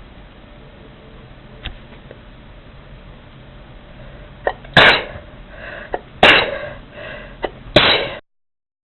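A person sneezing three times in quick succession, about a second and a half apart. Each sneeze is led by a short, sharp catch of breath.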